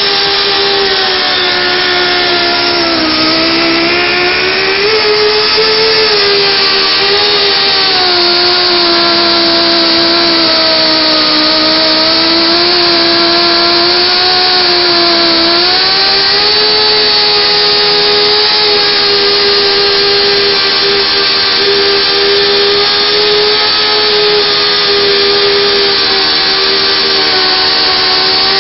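ISP 352 portable pipe-beveling machine, clamped inside a steel pipe, running with a steady whine as its cutter machines the pipe end. The pitch sags under the cutting load about three seconds in and again around fifteen seconds, then picks back up.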